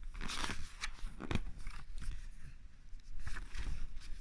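Handling noise: scattered crackling rustles with a few light knocks, loudest about half a second and a second and a half in.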